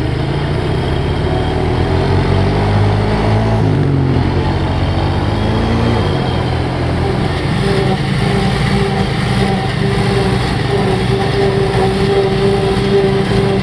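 Heavy farm diesel engines running: a Fendt tractor pulling a loaded silage trailer under load, its engine pitch shifting and dropping between about three and six seconds in. From about eight seconds in, a steady drone with a high whine from the forage harvester working.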